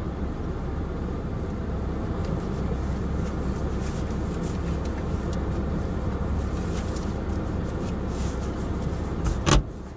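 Steady low rumble of a car heard from inside the cabin, with light rustling and clicks as the sun visor is pulled down and the phone is handled. A single sharp knock comes near the end.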